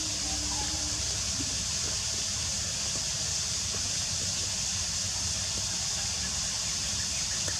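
Steady outdoor background noise: a constant high hiss with a low rumble underneath, with no distinct events.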